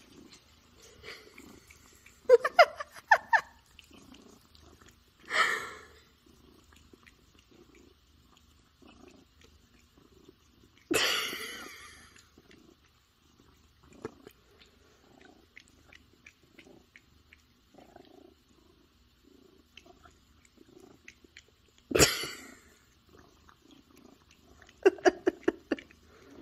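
Domestic cat purring in soft, repeating waves while its lower back is scratched. A few short, louder sounds break in, two of them quick stuttering runs, the loudest a little under halfway through.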